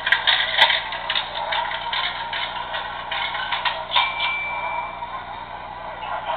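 MTH O-gauge PCC streetcar model running on its track: a steady run of fast clicking and clatter. A single thin, high ringing tone sounds briefly about four seconds in.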